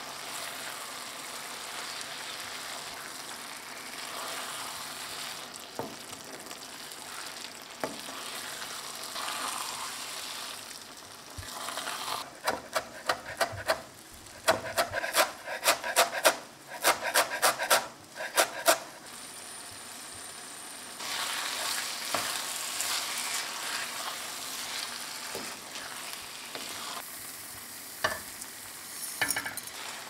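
Shredded cabbage and mushrooms sizzling in a frying pan, stirred with a wooden spatula. About twelve seconds in, a chef's knife chops fresh herbs on a wooden cutting board in three quick runs of sharp chops. After that the pan sizzles again.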